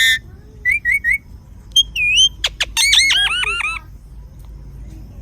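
A parrot calling in a string of varied sounds. A loud call cuts off at the start, then come three short whistles, a wavering whistle, two sharp clicks, and a quick run of about six falling squawks.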